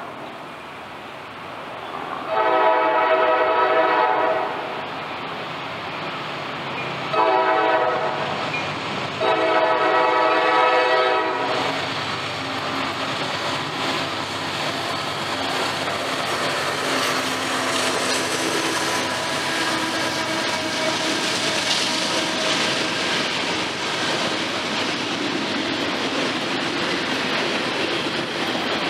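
Freight train's air horn sounds three blasts, long, short, long, as it nears, then the train passes with a steady rumble of diesel locomotives and the clatter of double-stack intermodal cars on the rails.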